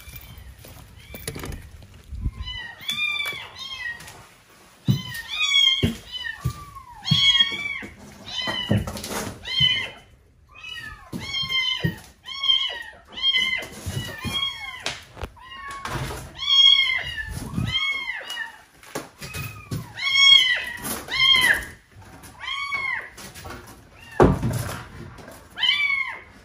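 A kitten meowing over and over, short high calls that rise and fall, about one a second: the distress cries of a kitten trapped inside a house wall.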